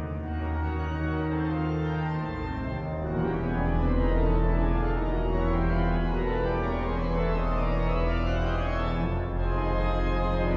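Durham Cathedral's pipe organ playing full sustained chords over a deep pedal bass, changing chord about two seconds in and growing louder just after.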